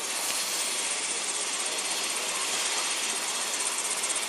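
Medical helicopter running on the ground, its turbine and rotor making a steady rushing noise.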